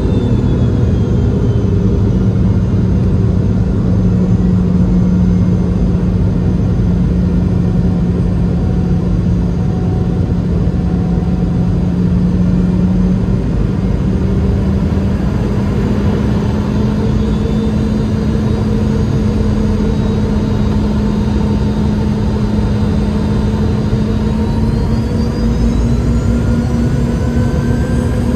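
Boeing 717-200 cabin noise heard from a rear window seat beside its aft-mounted Rolls-Royce BR715 turbofan on approach: a steady rushing engine hum. Its low tone rises slightly in pitch from about halfway through, while fainter high whines slide down near the start and rise again twice later.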